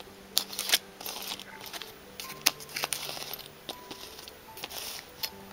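Clear plastic packaging bags crinkling and crackling in short, scattered bursts as fingers handle them.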